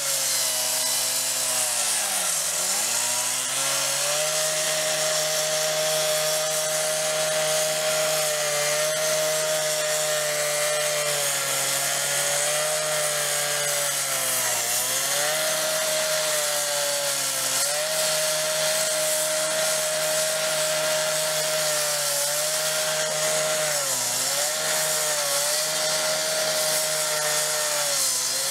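Two-stroke gas cut-off saw running at high speed while its diamond blade cuts a concrete paver, with a steady hiss over the engine note. The engine pitch sags briefly a few times as the blade loads in the cut, then recovers.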